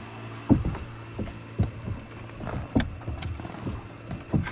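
Wooden dugout canoe (pipante) moving under human power: irregular hollow knocks of a pole or paddle against the hull, about once a second, with water lapping along the boat. A faint steady hum runs underneath.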